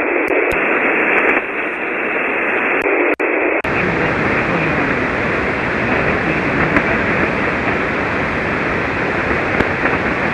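Shortwave receiver hiss: steady 40-meter single-sideband band noise with no readable signal in it, the weak calling station lost below the noise. A little after three seconds the audio drops out briefly and the hiss changes, becoming broader and flatter.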